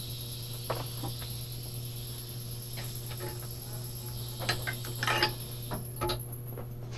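TIG welding arc on a broken exhaust stud in an aluminium cylinder head: a steady hiss with a high whine that cuts off shortly before the end, and scattered light clicks and taps of metal. The weld melts into a blob instead of holding the nut.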